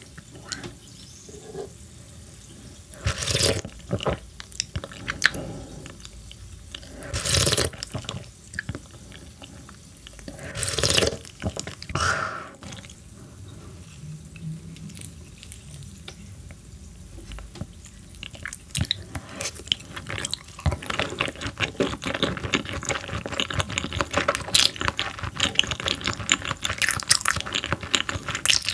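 Close-miked eating sounds: several wet slurps of clear croaker soup sipped from a spoon, then chewing of raw croaker sashimi, with dense small wet smacks and clicks in the second half.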